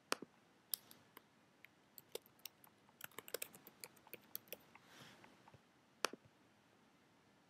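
Faint computer input sounds: a click at the start, then a quick run of keystrokes on a computer keyboard typing a short word, then a single click about six seconds in.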